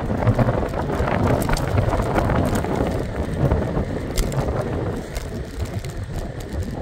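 Scooter riding along a paved path: a steady rough rumble of wheels and wind on the microphone, with scattered small rattles and clicks.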